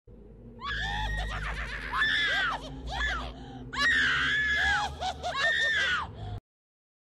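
High-pitched screaming cries, several drawn-out wails that rise and fall in pitch, with the loudest bouts about two and four seconds in, over a steady low rumble. The sound cuts off suddenly about six seconds in.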